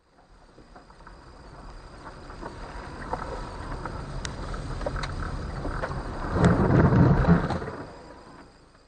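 Vehicle rumble picked up by a dashcam inside a car on a rough dirt lane. It swells steadily to its loudest about six to seven seconds in, then fades, with a few sharp ticks along the way.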